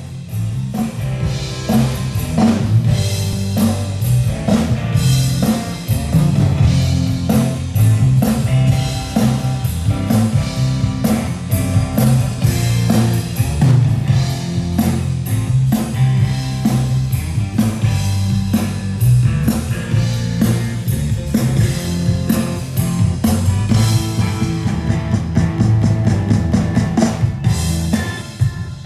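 Rock band playing: drum kit, bass guitar and electric guitar, with a steady driving beat and a heavy bass line.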